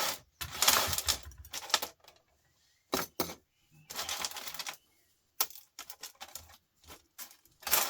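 Small scrap parts from a stripped-down record player clicking and clattering as they are handled and tossed into sorting bins. It comes as a run of separate clicks and short rattles with pauses between them.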